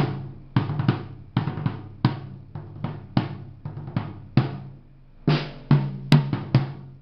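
Tama Imperialstar snare drum and 10- and 12-inch rack toms struck one after another, about twenty single hits with a short break after about four and a half seconds. The tom heads are tuned loose.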